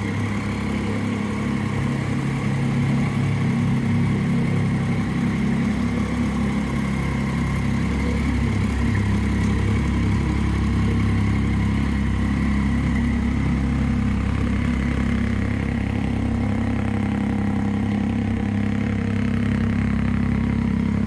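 Triumph Street Triple 675's three-cylinder engine idling steadily through aftermarket SP Engineering exhausts.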